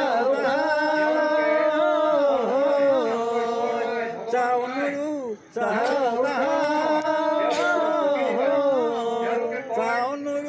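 A voice singing a slow, chant-like melody in long held notes that bend and waver in pitch, with a brief break about five and a half seconds in.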